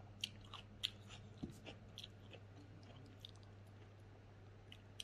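Faint close-up chewing of smoked pork, with scattered small sharp mouth clicks, over a steady low hum.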